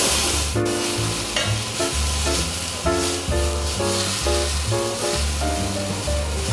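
Venison fillet sizzling in a hot frying pan. Background music with a rhythmic bass line and short melody notes plays over it.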